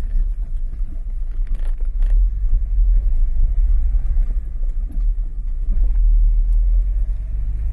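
Citroën BX on the move, heard from inside the cabin: a steady low rumble of engine, tyres and wind.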